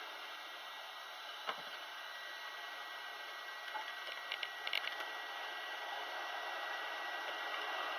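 Hot-air rework station blowing a steady hiss of hot air. A sharp click comes about a second and a half in, and a few small clicks come around the middle.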